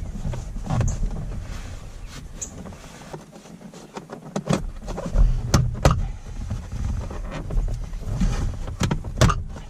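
Plastic center console and dash trim of a Toyota Tacoma being pulled backward and worked loose by hand: irregular knocks, clicks and rubbing, with a few sharp clicks in the second half.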